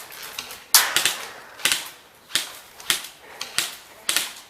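Airsoft gun firing single shots: about six short, sharp cracks, spaced roughly half a second to a second apart.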